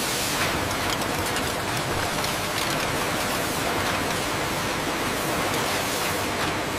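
Steady, even hiss of bottling-line factory ambience over the conveyors and filling heads, with faint scattered ticks.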